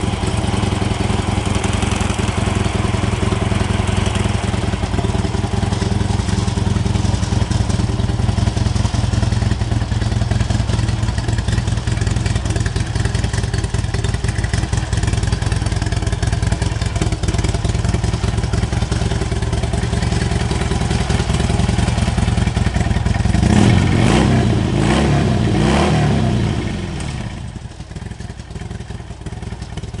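2016 Harley-Davidson Dyna Low Rider's air-cooled Twin Cam 103 V-twin running steadily at idle, then revved up and down a few times about three-quarters of the way through before settling back to a quieter idle.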